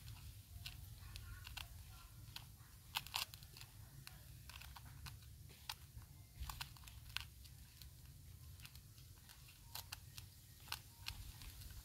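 Quiet outdoor background: a faint low rumble with scattered sharp clicks and crunches, a few louder ones about three seconds in and again around seven and ten seconds.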